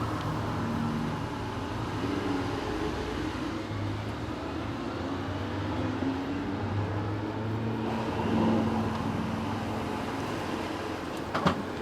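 Steady drone of a moving car heard from inside the cabin, road and engine noise with a low hum. A couple of sharp clicks near the end.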